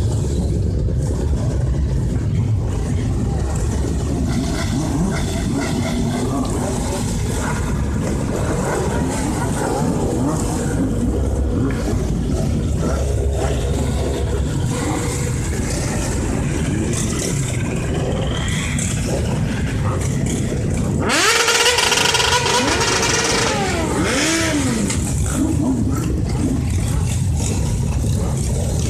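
Many motorcycle, scooter and quad engines idling and revving together as a column of riders moves off, with people talking. About two-thirds of the way through, one engine close by revs hard for a few seconds, the loudest moment.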